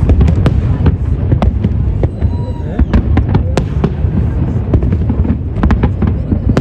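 Fireworks going off in rapid succession: many sharp bangs and crackles over a continuous low booming rumble.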